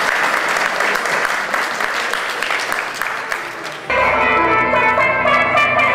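Audience applauding for about four seconds, then an abrupt cut to live electronic keyboard music with several sustained notes at once.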